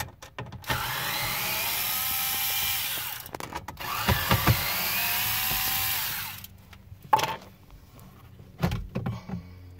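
A powered screwdriver whirs twice for about two and a half seconds each, its pitch rising, as it backs out the radio's two T20 Torx mounting screws. A few short knocks follow near the end as the radio chassis is handled.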